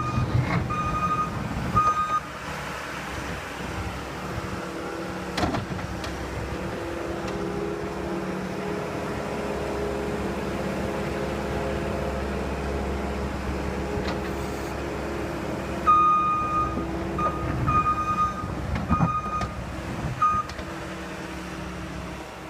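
Skid steer engine running steadily, its backup alarm beeping repeatedly at the start and again near the end as the machine reverses. A couple of sharp knocks are heard, one early and one near the end.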